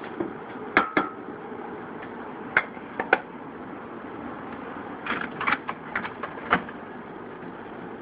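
An egg knocking inside a glass measuring cup as the cup is handled and set down on a coffee maker's drip tray: sharp clinks, one ringing briefly about a second in, then a cluster of clicks and knocks between five and six and a half seconds in, over a steady hum.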